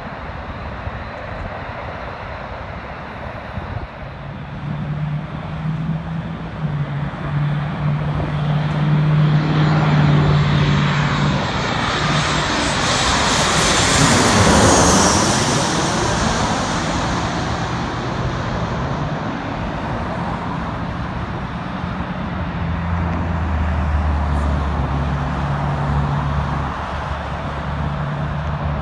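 Jet airliners on final approach, the loudest a Southwest Boeing 737-700 passing low overhead: its CFM56 turbofans swell to a peak about halfway through, dropping in pitch as it goes over, then fade to a steady distant rumble.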